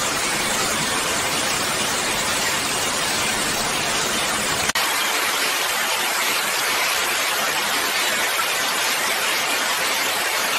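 A steady, even hiss of noise spread across high and low pitches, with a slight change in tone about five seconds in.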